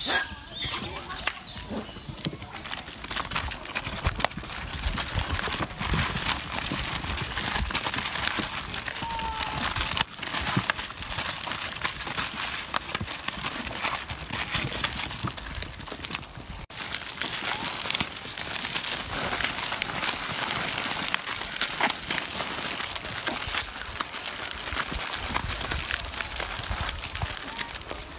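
Plastic snack wrappers crinkling and rustling as monkeys grab and pull at a pile of packets.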